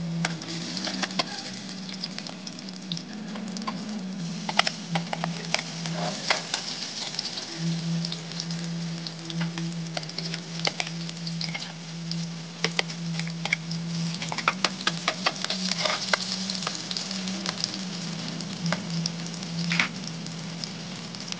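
Hot oil sizzling in a metal wok, with many sharp crackles and pops, as ginger, garlic and onion fry in it; a steady low hum sits underneath.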